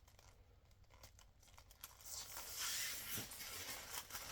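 Protective plastic film being peeled off a plate. It starts faint with a few small clicks and crinkles, then becomes a loud, long tearing rip from about two seconds in.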